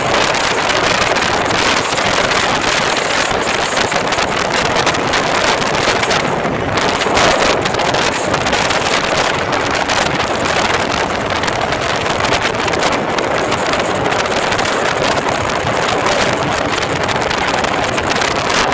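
Steady wind noise buffeting the microphone on a KTM Duke 200 motorcycle ridden at speed, with vehicle noise mixed in.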